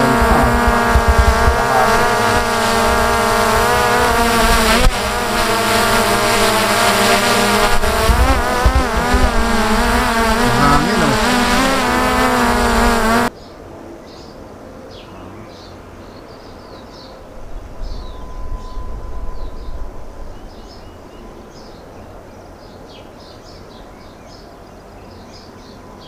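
DJI Mavic Air 2 drone hovering close by, its propellers whining loudly on several steady, slightly wavering pitches. About 13 seconds in the whine cuts off abruptly, leaving a much quieter background with faint, short high chirps.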